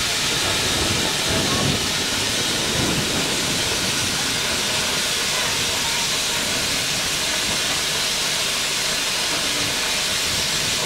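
Steady loud hiss of steam escaping from the Neilson Reid 0-6-0 tank engine Lord Roberts.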